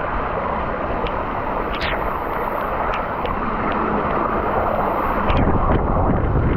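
Mountain bike pedalling through floodwater: a steady splashing and churning of water, with a few light clicks. Wind buffets the microphone, heavier from about five seconds in.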